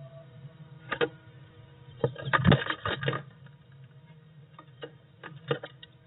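Blue tit's feet and beak scratching and tapping on the wooden floor of a nest box, with a flurry of scraping about two seconds in and a few single taps near the end, over a steady low hum.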